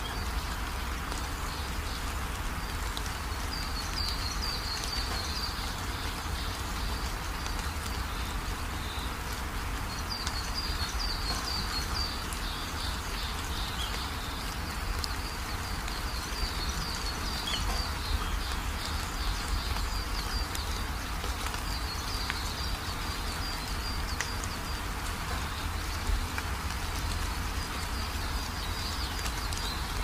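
Steady noise of water trickling and running over rocks in a shallow mountain stream, with bursts of high chirping coming and going.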